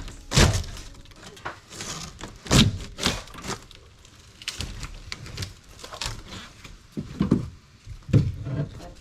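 Irregular thuds and cracks of wooden panelling being knocked and broken loose while a camper's interior is torn out.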